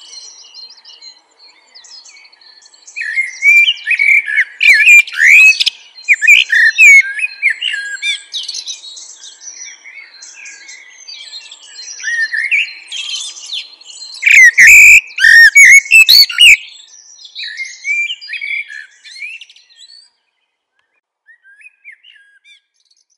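Birds chirping and singing, a busy run of short, varied high calls that comes in louder stretches, with a few low thuds in the loudest one. The song dies away about twenty seconds in, with only a few faint chirps after.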